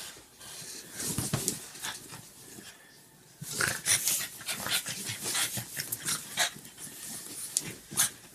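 Pug playing excitedly on a bed: a run of short, breathy, irregular noises and panting, mixed with bedding rustling as it scrambles about, with a brief lull about three seconds in.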